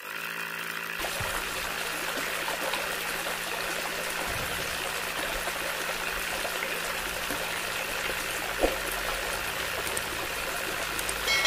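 Water from a small pump's plastic tube running in a steady trickling stream onto a toy tractor and into a muddy puddle. A short chime sounds near the end.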